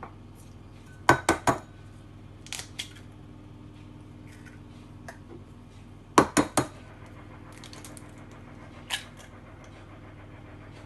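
Eggs being cracked on the rim of a bowl: three quick sharp taps of shell on the bowl about a second in, three more about six seconds in, and a single tap near the end.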